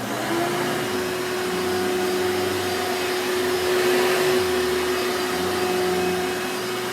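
Hoover Elite bagged upright vacuum cleaner running. Its motor whine settles to one steady pitch right at the start and holds there, over the rush of air.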